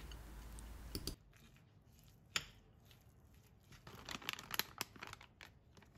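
A metal spoon stirring thick oat dough in a bowl, giving faint, scattered scrapes and clicks against the bowl, with a single click a little past two seconds in and a busier run of them from about four to five and a half seconds.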